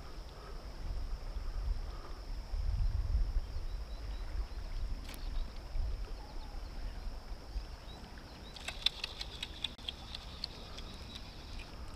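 Low rumble of river current and wind buffeting the action camera's microphone while wading. From about two-thirds of the way in there is a quick run of sharp clicks lasting about three seconds.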